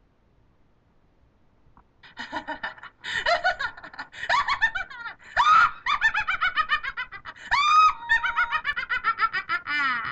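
High-pitched cackling laughter that starts about two seconds in and runs in quick, rhythmic ha-ha pulses, with a sharp shriek-like rise near the middle.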